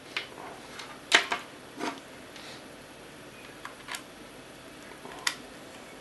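Handling clicks and taps of small plastic parts as an audio cable's plugs are pushed into the jacks of a battery pack and a remote-control box: a handful of sharp clicks spread out with pauses between them, the loudest about a second in.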